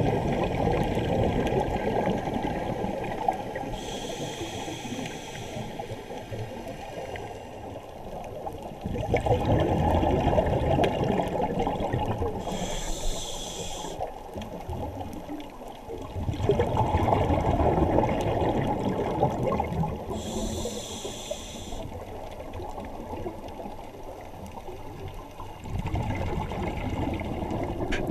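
Scuba diver breathing through a regulator underwater: a short hiss of the demand valve on each inhale, then a long burst of exhaled bubbles. The cycle repeats about every seven to eight seconds, three inhales and four bubble bursts.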